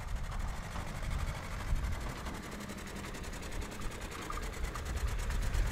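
Ursus C-328 tractor's two-cylinder diesel engine chugging as it pulls a loaded trailer along the road, its pulsing beat growing louder as it approaches near the end.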